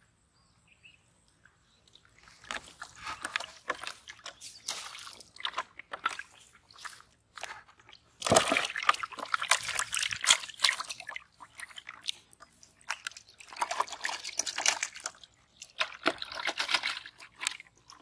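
Live eels thrashing in a shallow layer of water in a plastic tub, sloshing and splashing in irregular bursts, loudest about halfway through.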